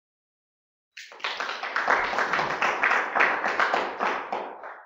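Applause: a short burst of many hands clapping that starts suddenly about a second in and fades away near the end.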